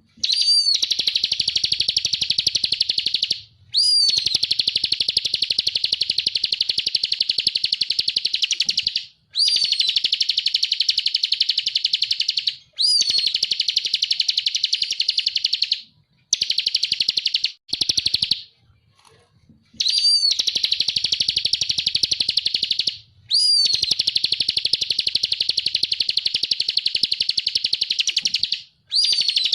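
Ciblek kristal (bar-winged prinia) singing full song. It gives a run of rapid, buzzy trills several seconds long, each opening with a swooping note, broken by short pauses.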